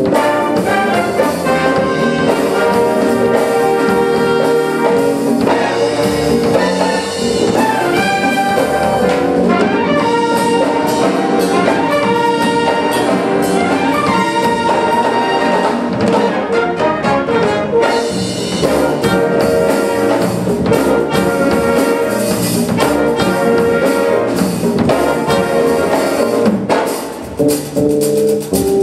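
A concert wind band of brass, woodwinds and drum kit playing a lively number, with trumpets and trombones to the fore.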